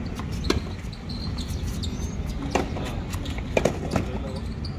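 A volleyball being struck during a rally: a handful of sharp slaps, one about half a second in, another a little past halfway, and three close together near the end, over a steady low murmur of crowd and hall noise.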